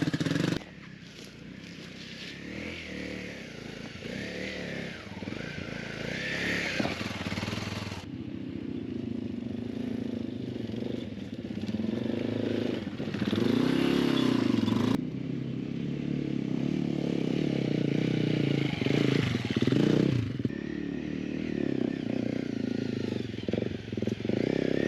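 Dual-sport motorcycle engines running and revving, rising and falling in pitch, in several short segments that change abruptly.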